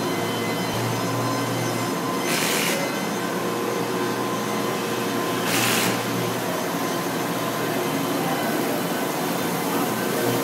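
Steady din of workshop machinery with a low hum, and two short hissing bursts about three seconds apart.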